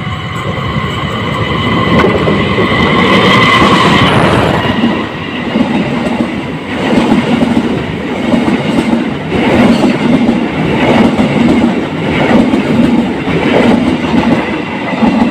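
Parcel Selatan train with its diesel locomotive running through the station without stopping. The locomotive's pitched engine sound swells and is loudest a few seconds in as it passes. Then the cars roll by with a rumble and a repeating clatter of wheels over the rail joints.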